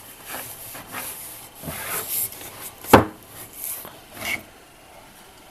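Phonograph records being handled and put away: a run of short rubbing, sliding sounds, with a sharp knock about three seconds in and a smaller one a second later. The sounds stop about four and a half seconds in.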